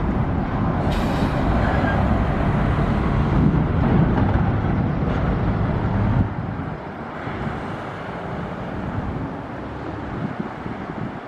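Heavy truck's diesel engine running close by, with a short hiss about a second in. The engine sound drops away suddenly a little past halfway, leaving quieter traffic noise.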